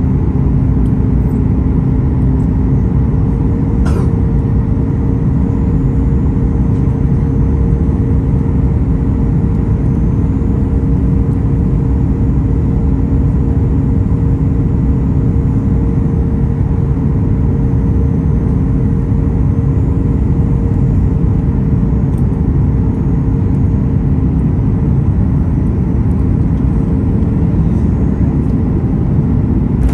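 Cabin noise of a Boeing 737 MAX 8 on final approach: its CFM LEAP-1B turbofans and the rushing airflow make a steady, loud noise with two steady humming tones through it.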